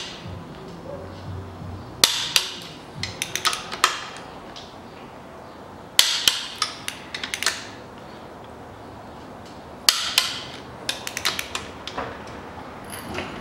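Click-type torque wrench set to 80 Nm tightening the main bearing cap bolts of an engine block. There are three rounds of clicks about four seconds apart, each a sharp loud click followed by several lighter ratchet clicks.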